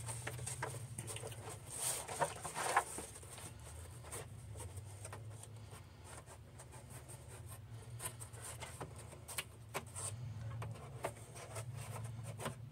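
Faint off-camera handling noise: scattered light clicks and knocks, a few louder ones about two to three seconds in, over a low steady hum.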